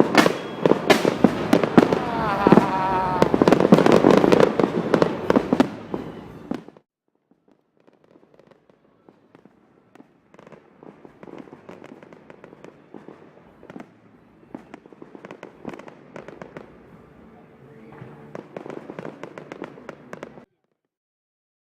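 Fireworks display going off: a dense run of sharp cracks and bangs for the first six seconds or so, which cuts off suddenly. A fainter stretch of crackling pops follows from about ten seconds in and also cuts off short of the end.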